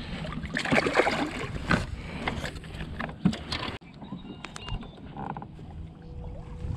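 Water noise and gear handling aboard a fishing kayak: busy splashing and clatter with short knocks for about four seconds, then a sudden drop to quieter lapping water and light ticks.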